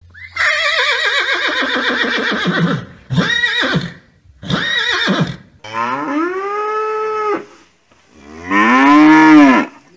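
Cattle mooing: five calls, the first long and wavering, then two short ones, then two longer ones, the last the loudest.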